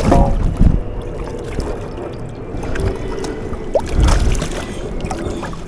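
Steady low rumble of wind and handling noise with a couple of dull thumps, about half a second in and again near four seconds in, while a white bass is handled over a boat deck.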